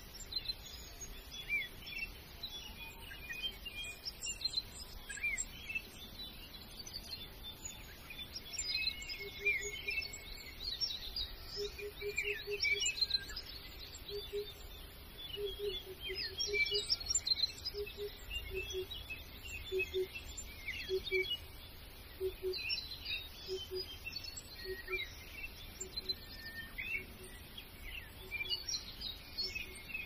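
A chorus of small birds chirping and twittering, many short high calls overlapping. From about ten seconds in until near the end, a low call repeats about once a second beneath them.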